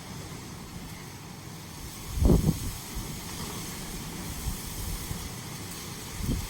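Steady hiss of light rain with wind buffeting the microphone in low rumbles, one stronger gust about two seconds in.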